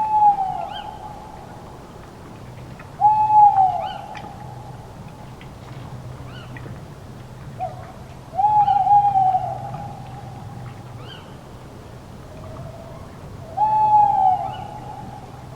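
Owl hooting: four drawn-out hoots, each falling in pitch at its end, spaced three to five seconds apart. Fainter chirps sound higher up, over a low steady hum.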